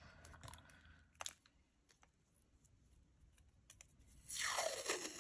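Package of masking tape being opened by hand: faint handling noise and a few light clicks, then a louder rustle of packaging lasting about a second near the end.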